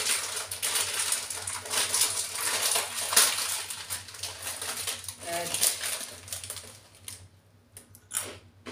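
Crinkling of a plastic snack bag of mini grissini being opened and rummaged, dense rustling that thins out after about five seconds. Near the end come a few separate crunches of a breadstick being eaten.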